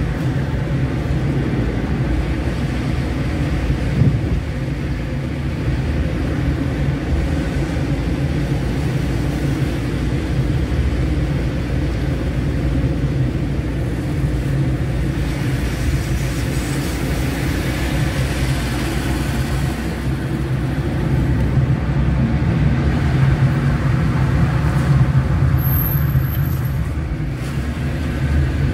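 Car driving on a city street, heard from inside the cabin: a steady low drone of engine and tyre noise, with a single knock about four seconds in.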